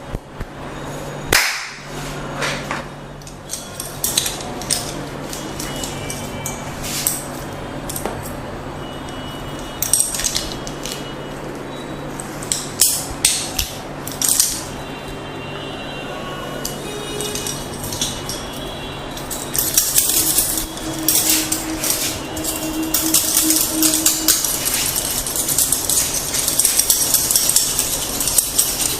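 Scattered sharp taps and clicks of a massage session, over a steady low hum and faint music. From about twenty seconds in, a denser scratching, rustling noise takes over.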